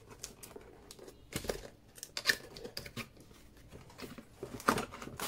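Packaging being handled during an unboxing: irregular crinkling and rustling, with a few louder scrapes, the loudest near the end.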